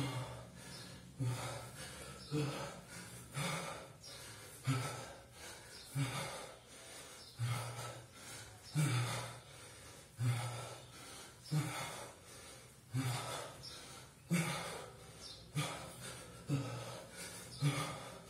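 A man's hard, rhythmic breathing under effort: one sharp, forceful exhale about every second and a quarter, in time with his reps of one-arm kettlebell cleans with a 24 kg bell.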